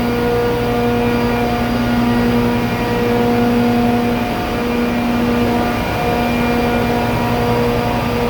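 400 hp ammonia (R-717) low-side booster compressor running steadily: a loud, even machine drone with a steady hum of several evenly spaced tones.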